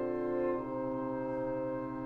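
Woodwind quintet of flute, oboe, clarinet, French horn and bassoon playing sustained chords. The notes change just over half a second in, then the new chord is held.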